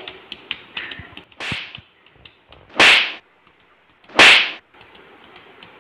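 Three sharp whip-crack smacks about a second and a half apart, the last two loudest. They are much brighter than the rest of the recording, like hit sound effects added over a small boy slapping a man's back in a play fight.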